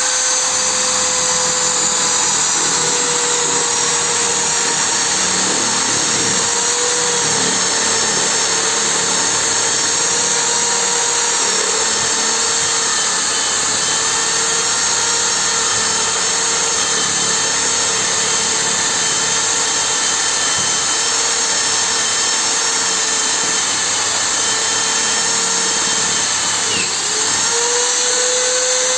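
Small hand-held electric drill running steadily with a high motor whine. About two seconds before the end, its pitch briefly dips and recovers, as if the motor is momentarily slowed.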